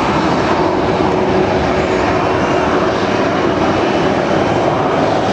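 Airbus A320-200's twin jet engines at takeoff thrust as the airliner accelerates along the runway, heard from across the airfield: a loud, steady rushing noise with a faint high whine.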